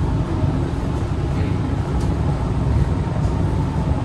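Metro train running, heard from inside the car: a steady low rumble with a faint click about halfway through.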